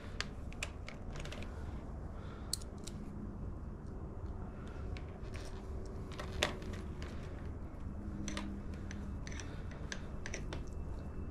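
Scattered light clicks and taps of small bolts and plastic motorcycle parts being handled and hand-threaded, with one sharper click near the middle, over a steady low hum.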